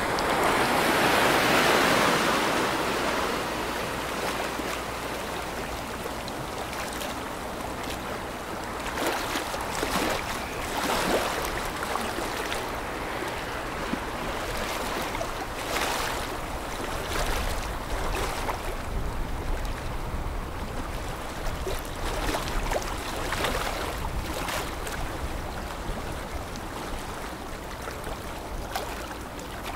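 Water rushing and splashing as a container ship's breaking bow wave and wake sweep past, loudest in the first couple of seconds, with a low rumble underneath that grows stronger about halfway through.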